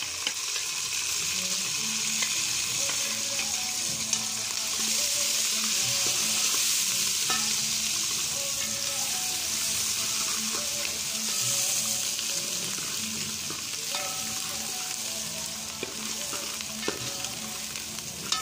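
Sliced onions frying in oil in a metal pot, a steady sizzle, with a metal spoon stirring and now and then clicking and scraping against the pot.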